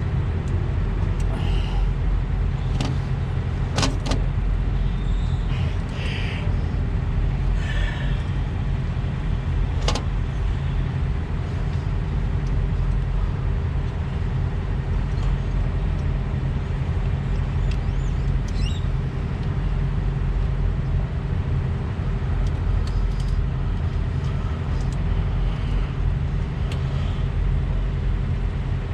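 Steady drone of an idling diesel truck engine, with a few sharp clicks and clinks from hand work on the truck's cooling hoses, about four and ten seconds in.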